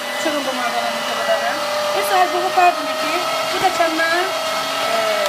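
Geepas electric meat grinder running steadily with an even motor hum while it grinds walnut filling through its mincing plate.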